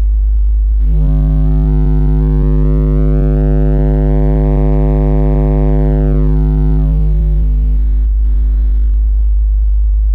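DD Audio car subwoofer in a box braced with threaded rods, playing a very loud, steady 50 Hz test tone that measures about 149 dB on the SPL meter. About a second in, a harsh buzz joins the low tone, then fades out around eight seconds.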